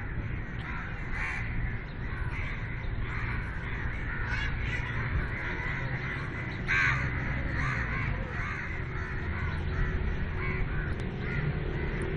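Many birds calling over and over in short arched calls, one call standing out louder about seven seconds in, over a steady low rumble.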